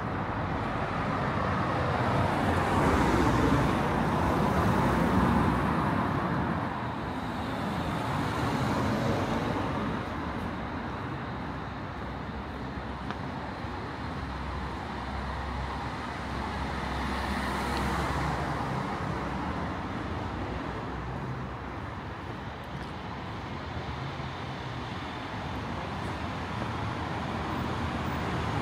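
City street traffic: cars passing one after another over a steady background hum, each swelling and fading as it goes by, the loudest a few seconds in.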